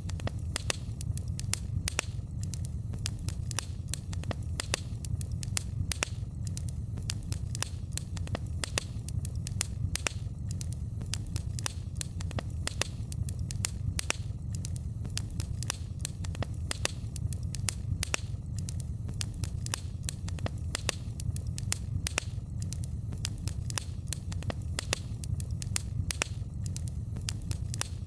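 Wood fire burning in a fireplace: many sharp pops and crackles, several a second, over a steady low rumble of the flames.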